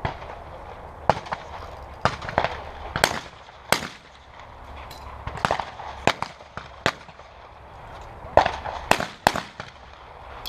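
Shotgun shots on a trap range: a dozen or so sharp reports at irregular intervals, several in quick pairs a fraction of a second apart, as Olympic trap allows a second shot at each target.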